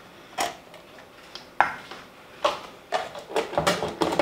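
Kitchen utensils clinking and knocking, a spoon against a stainless steel mixing bowl and a mayonnaise jar. There is a single sharp click about half a second in and another about a second and a half in, then a quicker run of clicks and knocks over the last two seconds.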